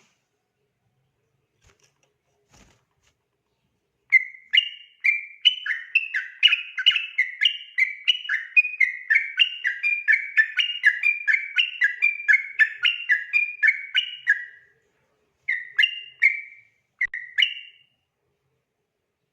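Yellow-vented bulbul singing its 'ropel' song, a long rapid run of short whistled notes that starts about four seconds in and goes on for about ten seconds, then two short phrases near the end.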